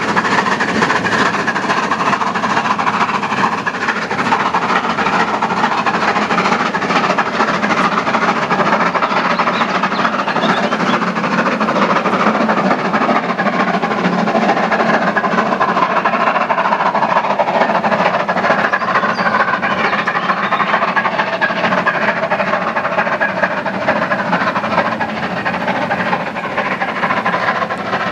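A steam-hauled train running past close by, a steady, loud clatter of wheels over the rail that eases a little near the end.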